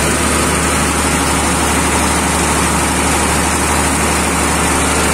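Large generator set (genset) running at a steady speed: a loud, even engine drone with a constant low hum.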